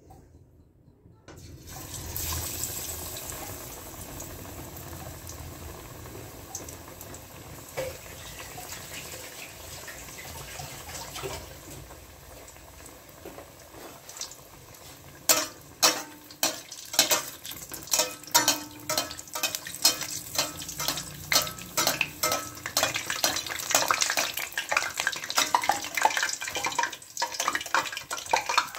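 Besan-battered stuffed bread pakora deep-frying in hot oil in a steel pot: a steady sizzle begins after a brief quiet, and from about halfway it turns into rapid crackling and popping.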